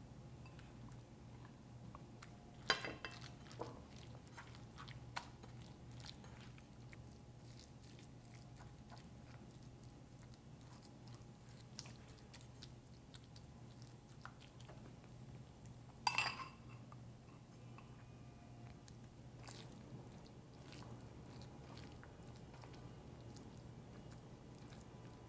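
Hands kneading and squishing minced raw beef with a wet seasoning sauce in a pan: faint, soft squelching and crackling. A few louder sharp sounds come about three seconds in and again about sixteen seconds in.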